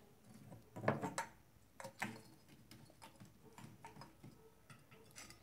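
Small clay pots and jars being picked up and set down into a woven basket: a run of irregular knocks and clunks of pottery against pottery and the tabletop, the loudest about a second in.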